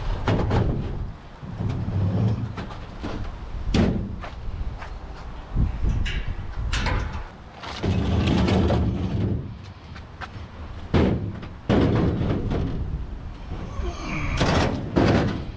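Repeated knocks, clunks and scrapes of hard-rubbish scrap being handled and loaded, with sharp slam-like impacts, the loudest about eleven seconds in.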